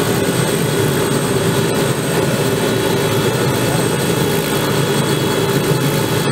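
Robinson R66 helicopter's Rolls-Royce RR300 turbine engine and main rotor running steadily on the ground, a continuous turbine whine with high steady tones over the rotor noise.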